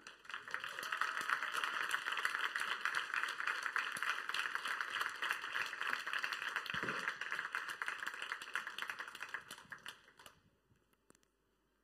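Audience applauding, swelling in the first second and dying away about ten seconds in.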